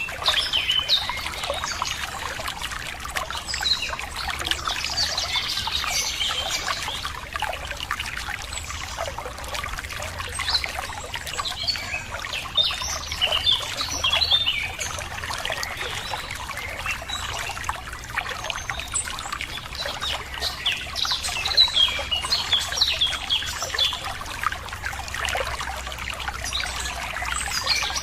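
Water trickling and splashing over rocks in a stream, with many birds chirping and singing over it, the chirps coming in clusters.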